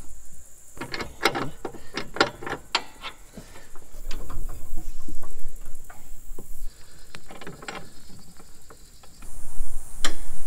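Irregular metallic clicks, knocks and clanks from hand tools and metal parts as a John Deere riding mower's deck is reassembled and its new deck belt is worked onto the pulleys. The loudest knocks come near the end.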